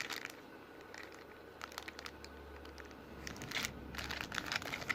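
Plastic toy-car packaging crinkling and crackling as it is handled, in a few short clusters of crackles and clicks.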